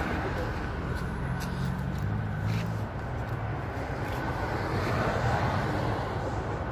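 Street traffic noise: a vehicle engine hums steadily nearby, and the road noise swells a little about five seconds in.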